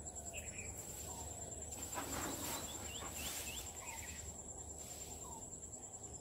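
Steady high-pitched insect trill of crickets or cicadas, with a bird repeating a short call about every second and a half and giving three quick chirps about three seconds in. A louder rustling noise rises about two seconds in and lasts for about a second and a half.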